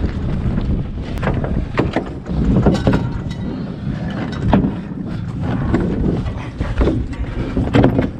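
Wind buffeting the microphone as a low rumble, with irregular knocks and scuffs throughout.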